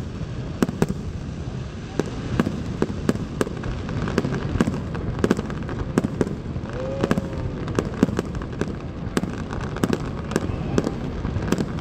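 Aerial fireworks bursting in rapid, irregular bangs and crackles over a steady low rumble.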